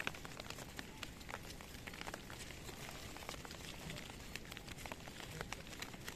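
Faint, scattered clicks and rustles of a flock of sheep and goats walking down a rocky, overgrown path, hooves striking stones and bodies brushing through wet brush.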